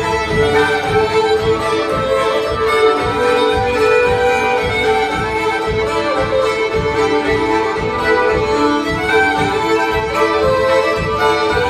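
Four fiddles playing an old-time fiddle tune together in unison, live, in a steady rhythm.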